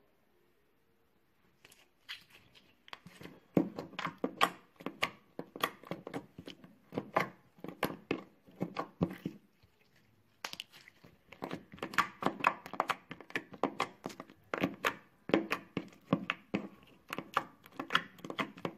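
Slime being squeezed and poked by hand, giving quick runs of wet clicking pops, with a short pause about halfway through.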